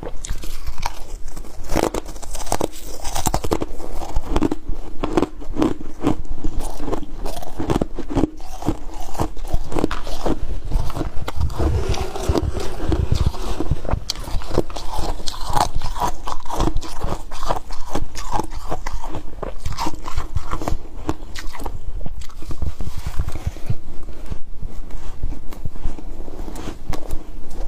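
Close-up crunching and chewing of a mouthful of freezer frost, with a quick, irregular run of crisp crackles as the icy frost is bitten and ground between the teeth.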